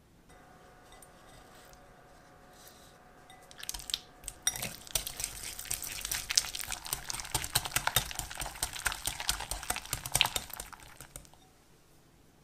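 Wire balloon whisk beating sour cream into cream cheese in a glass bowl: a rapid, irregular clicking of the wires against the bowl, starting about four seconds in and stopping near the end. Faint handling sounds come before it.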